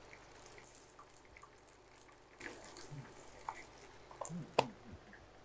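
Spice jar of cumin powder being shaken and tapped over a pan, making faint rattles and light clicks, with the sharpest click about four and a half seconds in.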